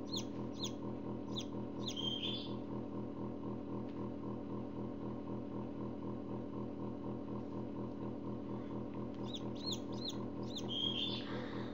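Forced-air incubator running with a loud, steady hum, while a hatching chick peeps in short, high, falling notes: a quick string at the start, a few around two seconds in, and another string from about eight and a half to eleven and a half seconds.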